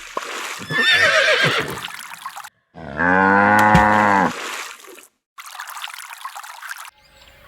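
Farm animal calls: a rough call in the first couple of seconds, then one loud pitched call about three seconds in lasting just over a second, then another rough call near the end.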